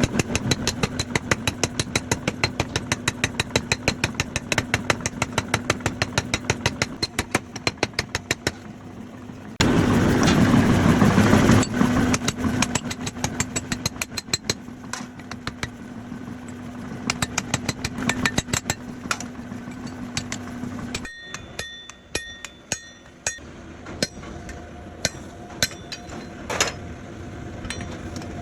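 Forging hammer pounding steel for a chisel: a fast, even run of blows, about six a second, over a steady machine hum, in the manner of a power hammer. Later come slower, separate hammer blows on the metal with a brief ringing.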